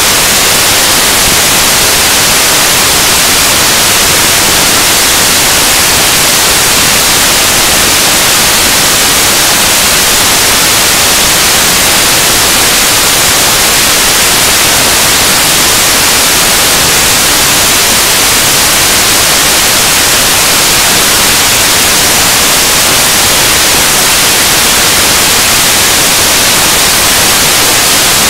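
Loud, steady static hiss, an even noise across the whole range and brightest in the treble, with no voice audible through it.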